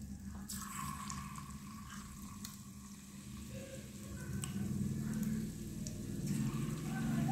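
Chicken pakora pieces deep-frying in hot oil in a small iron kadai, a steady sizzle with scattered crackling pops. A low hum underneath grows louder in the second half.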